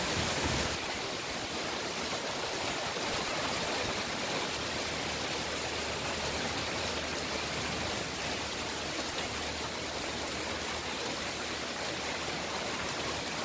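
Steady hiss of heavy rain and hail falling on roofs.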